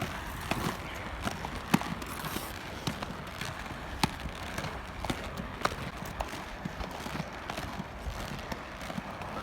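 Roller skates rolling on a hard surface: a steady rolling noise with scattered sharp clicks and knocks, a few each second.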